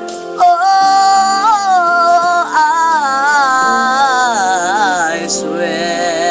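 A man singing long held notes without words, with vibrato and a run of wavering notes, over a backing track. The voice comes in about half a second in.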